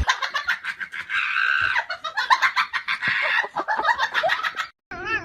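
A bird making rapid, dense clucking and squawking calls. After a brief cut near the end, a warbling call begins that wavers up and down in pitch.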